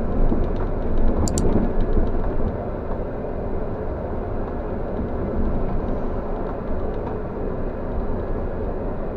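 Mercedes-Benz O500R bus's diesel engine (BlueTec 5) running with a steady low rumble, with a few faint clicks about a second in.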